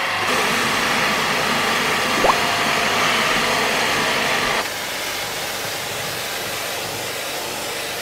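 Steady, loud rushing noise from the equipment cleaning a dismantled air conditioner. It drops in level a little over halfway through, and a brief rising whistle sounds about two seconds in.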